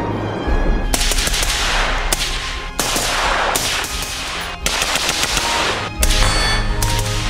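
Daniel Defense DDM4V7P AR-15 pistol firing a string of single shots, roughly one a second, each sharp crack trailing off in a long ring. Dramatic music plays underneath.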